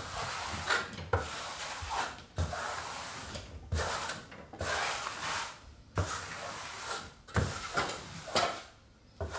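Flat steel trowel sweeping over Kerdi membrane, pressing it into wet thinset on drywall: a series of short rubbing, scraping strokes, roughly one a second and often in pairs, each with a light knock as the trowel meets the wall.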